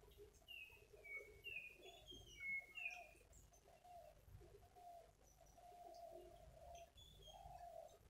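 Faint birds calling: a quick run of about six high chirps in the first three seconds, over repeated low calls throughout.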